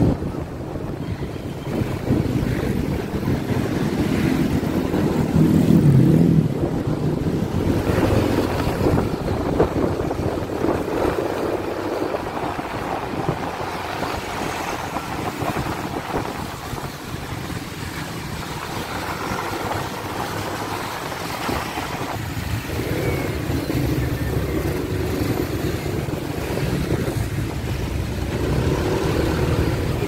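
Wind buffeting the microphone over a motorcycle's engine running while riding through traffic, with other vehicles around; loudest about six seconds in.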